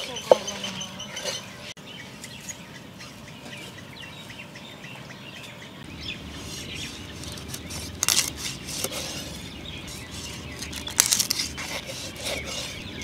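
A large knife cutting a king fish (seer fish) into steaks on a wooden board: a few sharp cuts and knocks, one near the start and more around eight and eleven seconds in. Birds chirp in the background.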